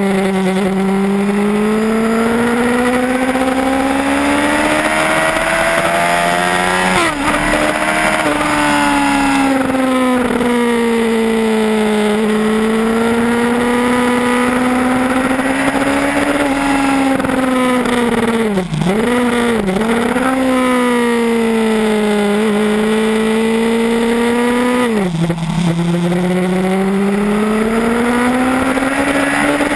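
Yamaha R1 inline-four engine at high revs under hard acceleration, pitch climbing steadily and dropping sharply at upshifts about seven seconds in and again about three-quarters through. Two brief dips in the engine note come a little past halfway.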